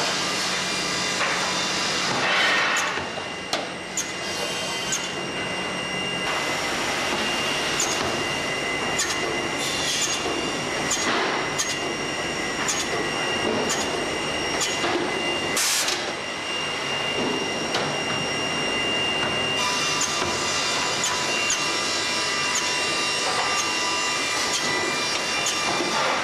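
CNC woodworking machine running steadily with a high whine, with irregular sharp clacks of wooden boards being laid and slid on its metal feed table.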